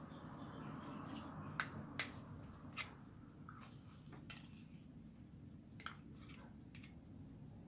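A metal spoon scraping peanut butter out of a small glass jar into a glass mixing bowl, with a few light clicks of spoon against glass, spaced irregularly over several seconds.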